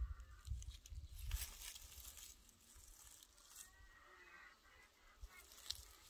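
Faint rustle and crackle of grass and dry fallen leaves as a cat rolls on its back, with a low wind rumble on the microphone in the first second or so. A faint wavering call comes about four seconds in.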